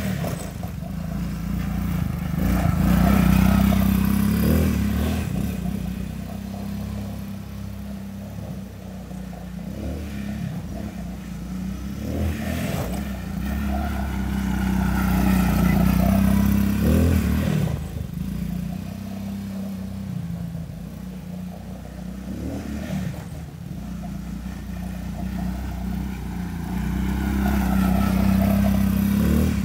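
Small youth ATV's engine running as it rides laps, growing louder three times as the quad passes close by, about every twelve seconds.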